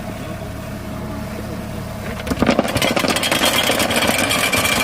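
Construction machine engine running steadily, then working harder from a little past two seconds in: louder, with a dense rattling clatter and a high whine on top.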